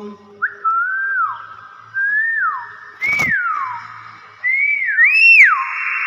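Hill myna giving five loud whistles, each rising then falling in pitch, the last two higher and loudest, with a sharp click about three seconds in.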